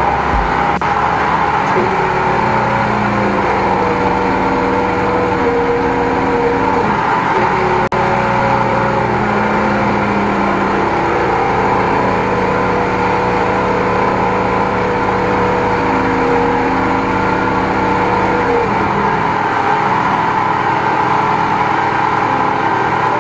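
High-pressure sewer jetting machine running steadily, its engine and pump driving water through the jetting hose into a drain line.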